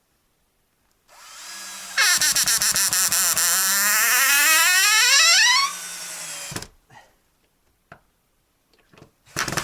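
Cordless drill-driver driving a screw into wood: the motor starts about a second in and runs loud for about four seconds, with rapid clicking and a whine that shifts in pitch, then stops. A short second burst follows near the end.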